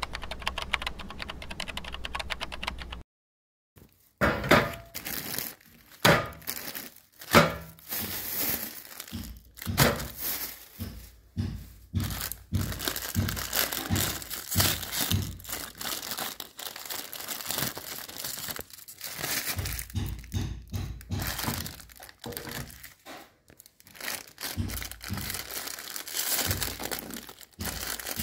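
Plastic ice cream bar wrappers crinkling and tearing as they are pulled open by hand, with scattered sharp thunks. This follows a few seconds of rapid typing-like clicks and a brief silence.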